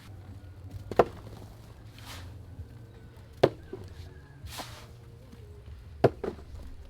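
A tool chopping: three sharp strikes about two and a half seconds apart, with softer rustling swishes between them.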